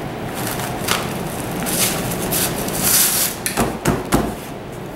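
Fabric rustling and scratchy rasps as a recliner's backrest canvas is pulled tight and pressed onto hook-and-loop fasteners, loudest about three seconds in, followed by two or three dull pats on the canvas near the end.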